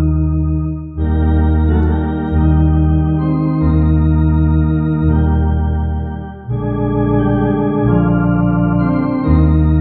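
Two-manual electronic organ playing a CCB baptism hymn in sustained chords over a deep bass line that moves to a new note about every second. The chords break off briefly twice, about a second in and just past the middle.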